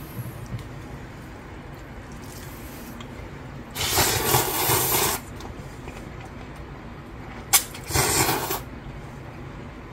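A man slurping spicy mixed noodles off his fingers: a long loud slurp about four seconds in and a shorter one near eight seconds, with a sharp click just before the second.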